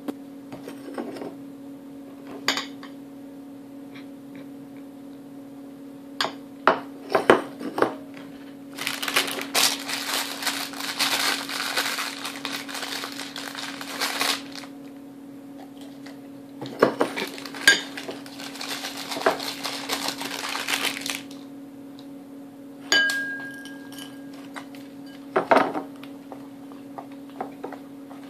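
Plastic cracker bag crinkling as it is handled, in two long stretches, between sharp clinks and knocks of a ceramic bowl and a glass beer mug on a wooden table. A steady low hum runs underneath.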